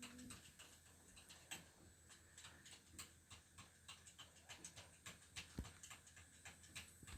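Near silence, with faint, irregular ticks and clicks, a few a second.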